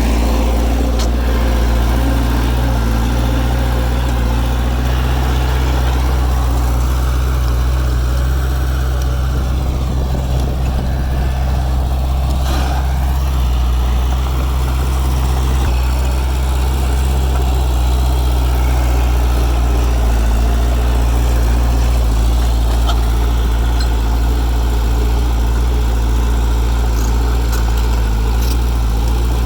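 Heavy diesel engine of earthmoving construction machinery running steadily at an even, low pitch.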